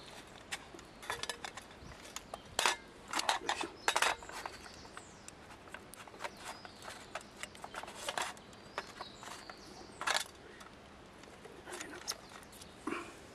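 Irregular sharp clicks, clinks and knocks of hands handling camp cooking gear, bunched about two to four seconds in and again near eight and ten seconds.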